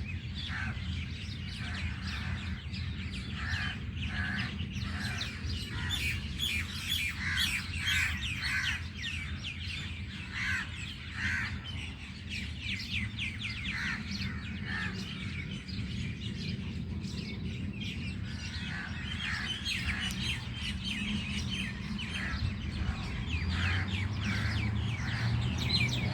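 A large flock of birds calling at once: a dense chorus of many overlapping short, shrill chirps and screeches, over a steady low hum.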